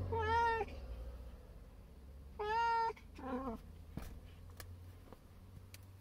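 Domestic cat meowing three times: a short meow at the start, a longer, level meow about two and a half seconds in, and a shorter one falling in pitch right after it.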